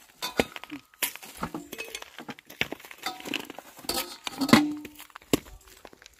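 A knife and raw chicken clinking and knocking against a metal bowl as a whole chicken is cut up by hand. Sharp, irregular clinks, with the bowl ringing briefly about four and a half seconds in.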